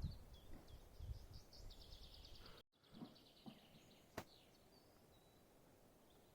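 Faint bird chirps and a fast trill over a quiet background, broken by a sudden silent dropout partway through, with a few soft clicks.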